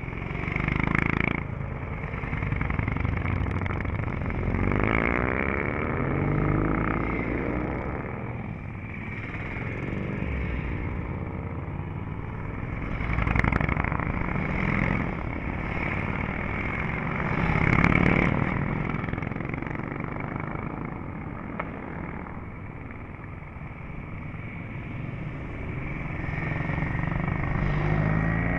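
Vintage and classic motorcycles riding past one after another, engines revving as each pulls away. The sound swells each time a bike goes by close: about a second in, several times through the middle, and again near the end.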